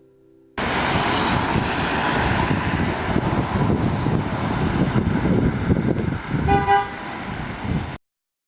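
Road traffic noise from cars on a flooded street, with one short car horn toot near the end. The sound starts and stops abruptly.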